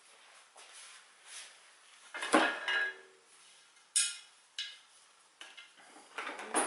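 Hard parts of a gaming chair knocking and clinking as they are handled and fitted together, with a loud clank that rings briefly about two and a half seconds in and a sharp click about four seconds in.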